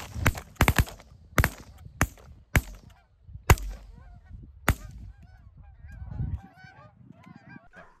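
A volley of shotgun shots, about nine in the first five seconds from several hunters firing at a flock, with Canada geese honking between and after the shots.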